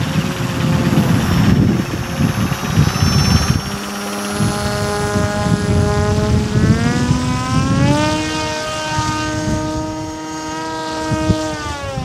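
RC model autogyro's motor and propeller running in flight, the pitch rising over a second or so about seven seconds in, holding high, then dropping near the end as the throttle changes. An uneven low rumble runs under it.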